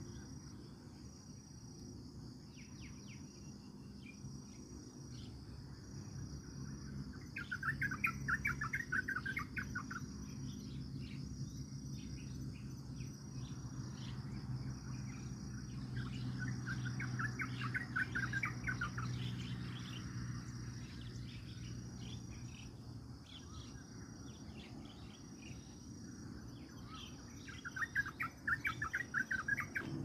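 Crickets or other insects chirping steadily in a high pulsing tone, with three bursts of rapid bird calls, each a couple of seconds long and roughly ten seconds apart. A low steady hum runs underneath.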